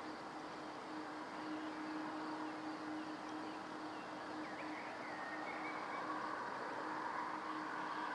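Distant outdoor airfield ambience: a steady low engine hum from far-off vehicles, rising a little near the end, with a few faint bird chirps over it.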